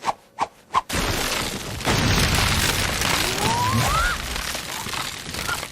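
Anime sound effect of a Wood Style (Mokuton) jutsu: three quick short clicks, then a loud, sustained rumbling crash of massive wood bursting out and growing.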